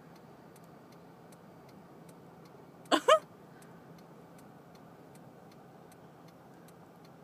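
A car's indicator flasher ticking steadily, about three ticks a second. A brief voice sound about three seconds in is the loudest thing.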